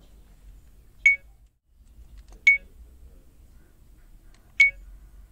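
70mai A500S dashcam giving three short, high button-press beeps while its clock and date are being set in the menu.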